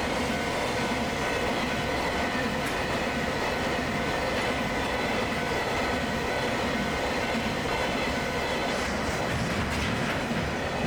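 Freight train rolling past, a steady continuous rumble and clatter of wagon wheels on the rails.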